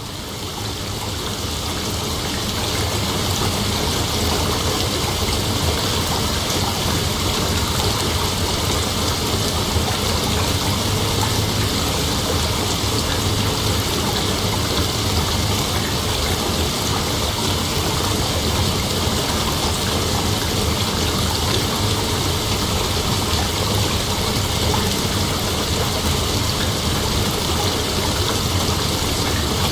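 Steady night-time nature ambience: a dense, even hiss with no distinct calls, fading in over the first couple of seconds.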